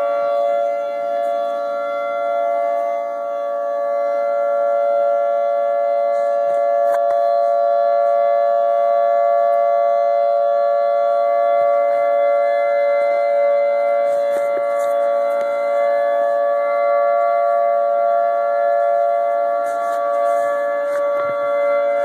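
Outdoor civil-defense tsunami warning sirens holding a loud, steady tone of several pitches at once, without rising or falling: the alert for a tsunami warning.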